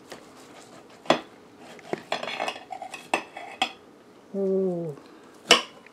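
A steel steak knife and fork clinking and scraping against a ceramic plate while a thick rib eye is cut, giving a string of sharp clicks. The loudest clicks come about a second in and again near the end.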